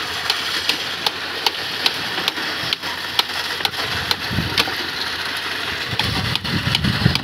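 Concrete boom pump running steadily while pumping concrete through its end hose, with a light regular ticking about two or three times a second. The low rumble grows louder near the end.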